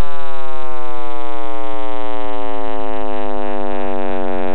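John Cramer's computer simulation of the sound of the Big Bang, built from data on the early universe: a loud drone of many stacked tones that all slide slowly down in pitch while fading gradually.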